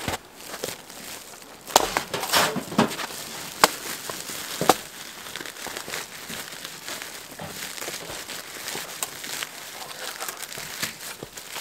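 Stiff white bag crinkling and rustling as it is handled and something is lifted out of it. A few sharp cracks, from branches being snapped, come in the first five seconds.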